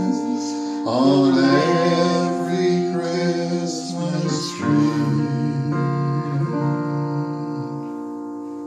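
Two acoustic guitars strummed with male singing, settling into a held final chord that rings on and fades away near the end.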